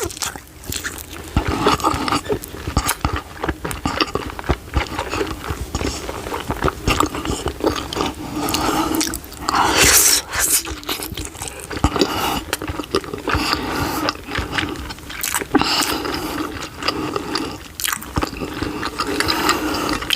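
Close-miked chewing and biting of a hot dog, with irregular wet mouth clicks, crunches and smacks; a louder burst of mouth noise comes about halfway through.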